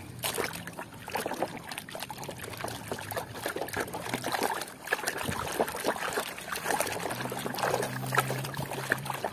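Water sloshing and splashing in a basin as a hand scrubs a plastic toy under frothy, muddy water, with irregular small splashes and dribbles.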